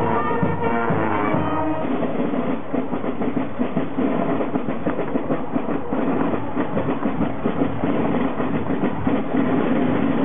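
Carnival brass band playing in the open air. About two seconds in, the horns give way to a dense, rhythmic din of drumming and crowd noise.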